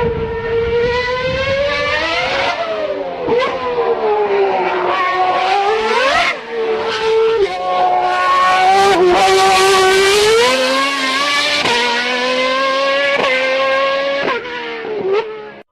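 Formula One race car engine at high revs, its pitch climbing and dropping several times over.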